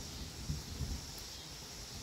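Steady hiss of rain falling, with a low rumble underneath and two soft low thumps about half a second and just under a second in.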